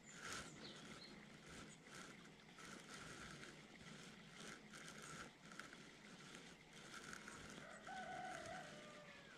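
Spinning reel being cranked to retrieve a lure: a faint, uneven whirring and ticking of the reel, repeating with each turn of the handle. About eight seconds in there is a faint drawn-out animal call.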